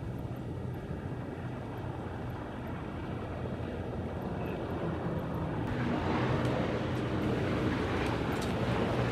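A steady low engine rumble with a rushing hiss. It grows louder and fuller from about six seconds in.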